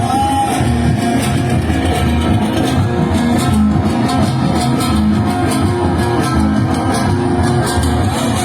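Live band playing an instrumental passage: an amplified plucked-string instrument over a steady drum beat.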